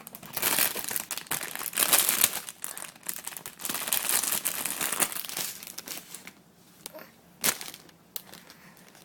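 Plastic packaging crinkling and rustling as a squishy toy is taken out of it. The crinkling dies down about six seconds in, and there is one sharp click near the end.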